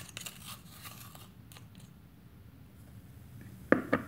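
Plastic spoon scraping baking soda in a can, then two sharp taps close together near the end as the spoon knocks against a hard rim.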